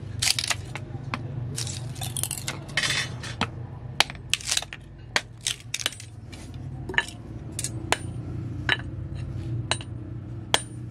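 Hand hammer striking an adze axe head on an anvil, sharp metallic ringing blows at an irregular pace of one or two a second, closely bunched in the first couple of seconds. A steady low hum runs underneath.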